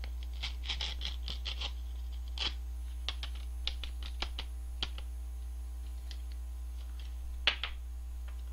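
Crinkling and clicking of an instant cup noodle's plastic and paper packaging handled close to the microphone: a dense run of crackles for the first couple of seconds, then scattered single clicks and one sharper snap near the end. A steady low hum runs underneath.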